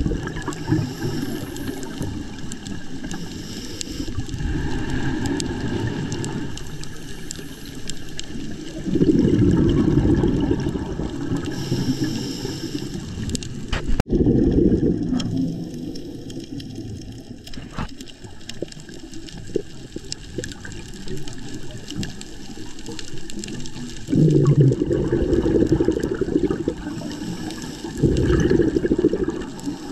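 Scuba regulator breathing underwater: loud bursts of exhaled bubbles rushing out a few seconds apart over a continuous low rumble of water.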